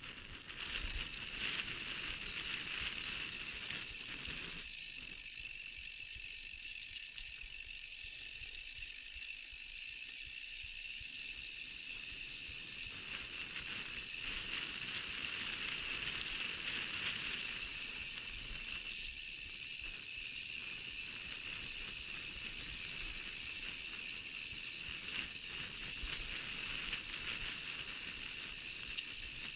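Mountain bike rolling down a rough, rutted dirt track, a steady noise of tyres and rattling bike, with a few sharp knocks over bumps about four to seven seconds in.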